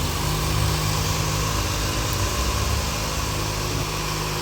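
Mitsubishi ASX engine idling steadily, restarted after its discharged battery was replaced with a good one.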